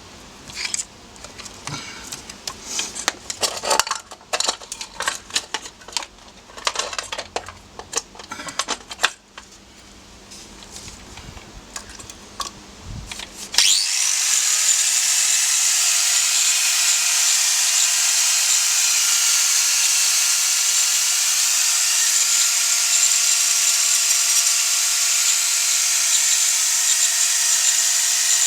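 Irregular clicks and knocks of tools being handled for the first half, then a power tool spins up with a brief rising whine and runs steadily at full speed with a high hiss.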